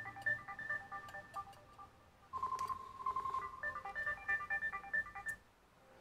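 A telephone ringing with a melodic ringtone: a short tune of clean beeping notes that fades briefly, plays again, and stops about a second before the end when the call is picked up.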